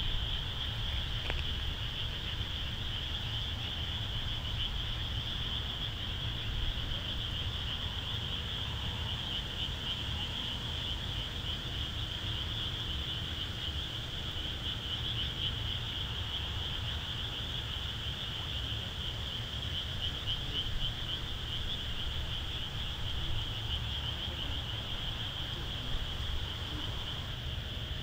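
Dense night chorus of frogs: a steady, high, fast-pulsing sound of many callers that runs on without pause, over a low steady rumble.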